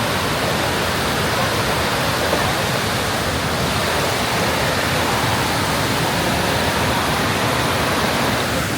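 Waterfall rushing: a steady, even wash of falling water with no break.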